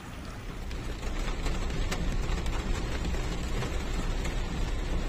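Heavy rain with a deep low rumble, heard from inside a car moving through a flooded street; it grows louder about a second in, with a few sharp drop hits.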